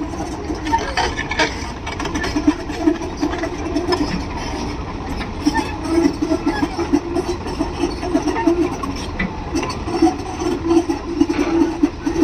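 Diesel engines of tracked excavators running steadily with a fluttering rumble, while a mini excavator crawls forward on its tracks, with a few knocks.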